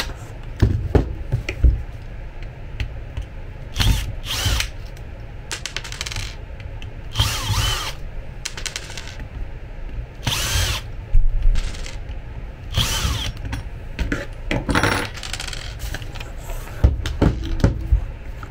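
Cordless drill-driver whirring in several short runs of about a second each, its whine bending up and down in pitch, as it backs the screws out of an electric bed's linear actuator housing. Small clicks and clinks of screws and metal parts come between the runs.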